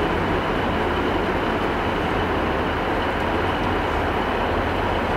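Diesel multiple units idling at a platform: a steady engine rumble with a low hum, unchanging throughout.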